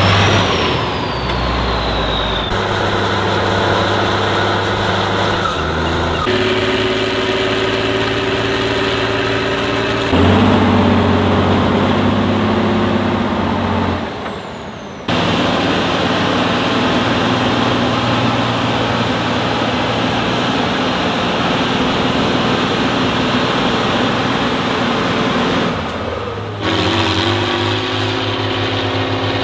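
Heavy off-road trial trucks' diesel engines revving and labouring under load, in several short clips that change abruptly one after another. Thin high whistles rise and fall over the engine note in the first half.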